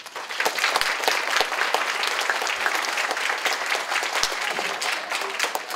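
Audience applauding: many people clapping at once. It swells quickly at the start and thins out near the end.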